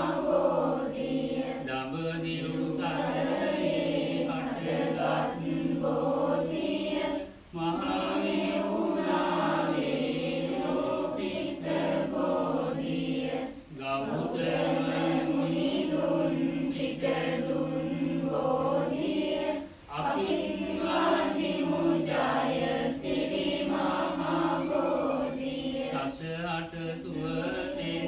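A group of voices chanting Sinhala Buddhist devotional verses in unison, in long held phrases with brief breath pauses every six seconds or so.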